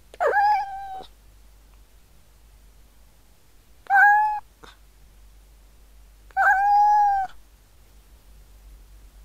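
A cat meowing three times, a few seconds apart, each meow under a second long and held at a fairly steady pitch, the last one the longest.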